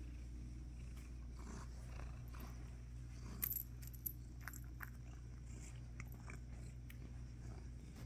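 Domestic cat purring steadily while being petted, with a few light clicks near the middle.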